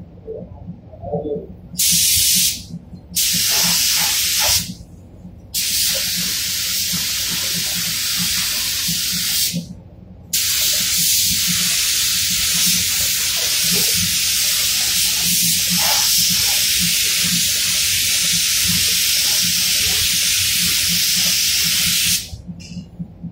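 Compressed-air paint spray gun hissing in bursts as the trigger is pulled for each pass of clear coat over car body panels. There are a few short passes, then one long pass of about twelve seconds that stops shortly before the end. A faint low hum runs underneath.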